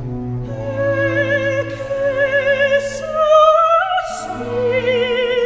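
Operatic singing over classical music: a voice holding long notes with vibrato, the pitch stepping up about three seconds in, over a steady low accompaniment.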